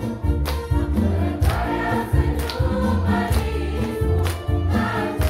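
A group of nurses singing together into a microphone over amplified backing music with a heavy bass and a steady beat.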